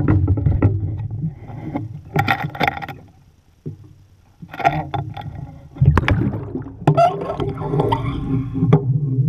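Loud, rough wind and water noise beside a boat's hull, with sloshing and knocks. About six seconds in, a loud splash and then bubbling and gurgling as the camera is dunked under the sea surface.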